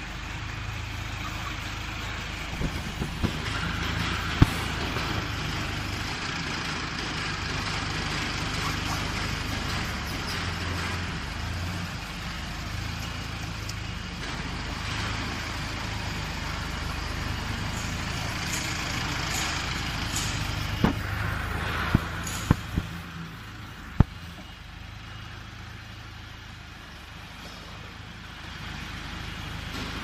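Engine of a 27 hp tracked skid steer loader running steadily while the machine manoeuvres, with several sharp metallic knocks, a cluster of them about two-thirds of the way through. The engine sound drops somewhat for the last few seconds.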